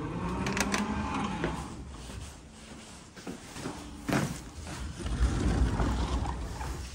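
Door and handling sounds: a steady hum for about a second and a half at the start, then clicks and knocks, with a sharp knock about four seconds in as indoor slippers are dropped onto the floor mat, and a door being pushed open near the end.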